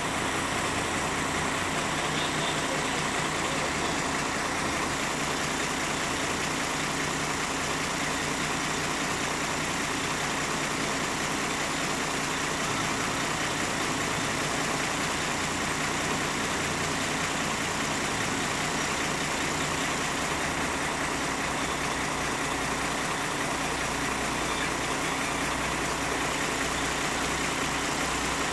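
Heavy diesel engine running steadily as a Caterpillar 928G wheel loader drives up to a lowboy trailer, with a deeper low rumble over the last few seconds as the loader climbs onto the trailer deck.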